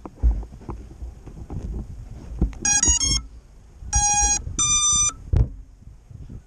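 FPV quadcopter startup beeps: a quick run of short stepped electronic tones about halfway through, then two longer beeps, the first lower and the second higher. Low bumps and rustling from handling go on around them.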